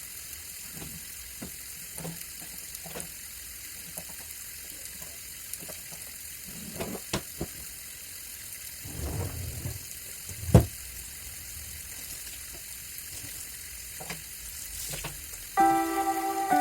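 Household cleaning sounds: a steady hiss of running water with scattered light knocks and clatter, and one sharper knock about ten seconds in. Background music comes in near the end.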